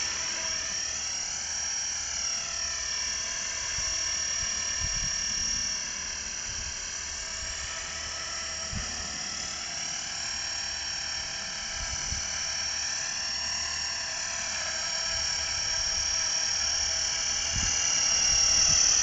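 Art-Tech Shark 450 SE RC helicopter in flight: the high-pitched whine of its electric motor and spinning rotor, its pitch wavering up and down as the throttle and collective are worked. It grows louder near the end.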